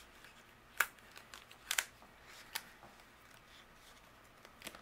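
Light paper-handling sounds as a paper sticker is peeled and pressed down onto a cardstock card: a few short, sharp clicks and small rustles spaced about a second apart over a quiet background.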